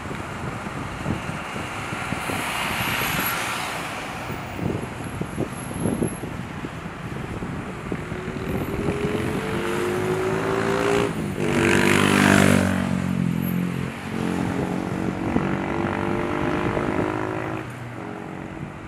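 Boeing 747-400F's four jet engines running as the freighter rolls and turns on the runway. A whine of several tones rises about eight seconds in, and the engine rush is loudest around twelve seconds in before easing off near the end.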